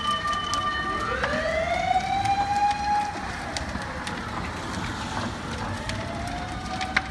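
Emergency vehicle siren wailing: its tone rises about a second in, holds, sinks, then rises again near the end. Scattered sharp cracks sound over it.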